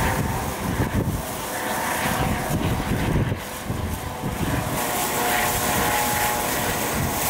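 Airbus AS365 Dauphin rescue helicopter flying overhead: a low, pulsing rotor beat with a steady whine that grows stronger after about five seconds.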